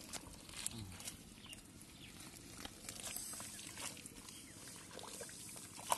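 Bare hands digging and scraping in wet mud among grass and plant stems: scattered soft squelches and clicks.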